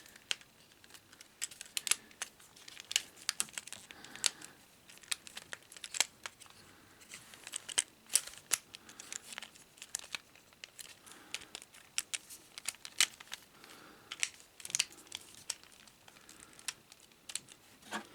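Irregular small clicks, snaps and rustling of hard plastic action-figure parts being handled and pressed into place while a Transformers figure is folded into vehicle mode.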